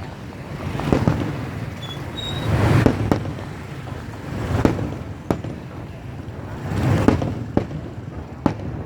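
Traffic passing on a bridge, the noise swelling and fading every couple of seconds as vehicles go by. Sharp distant firework bangs crack out now and then, about seven in all.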